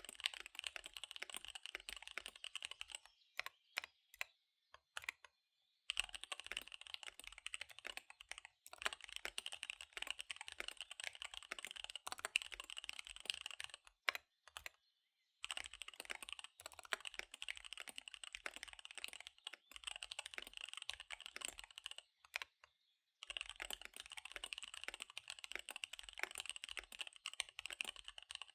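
Fast typing on a KBD75 V3 mechanical keyboard with SP-Star Dark Magic Girl tactile switches and DSA keycaps. There are four runs of rapid keystrokes, separated by pauses of a second or two that hold only a few scattered key presses.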